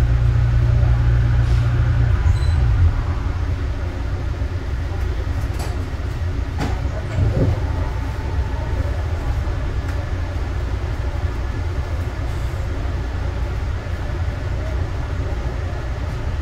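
Cabin noise of a Yongin EverLine driverless light-rail car (Bombardier ART 200) drawing to a stop at a station. A strong low motor and brake hum drops away about three seconds in, leaving a steady cabin hum with a faint click or two while the car stands still.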